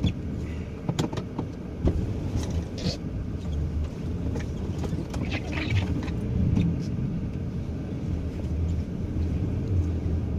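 Vehicle engine running at low speed, heard from inside the cabin as it creeps forward, a steady low rumble with scattered light clicks and knocks.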